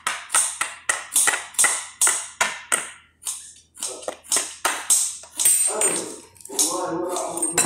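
A fork pricking pizza dough in a glass baking dish, in quick sharp taps about three or four a second that thin out after about three seconds. A pitched, voice-like sound joins near the end.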